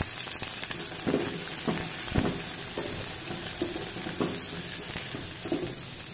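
Chopped onions and chillies sizzling in hot tempering oil in a metal pot, stirred with a wooden spatula that knocks and scrapes against the pot several times.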